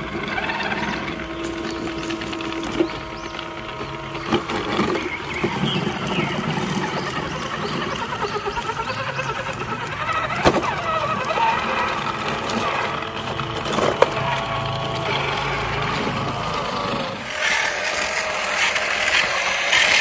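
Plastic toy trucks being run through sand, with crunching and scraping and a few sharp knocks. Music comes in near the end.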